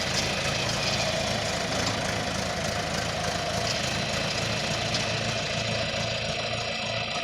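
310A backhoe's engine idling steadily.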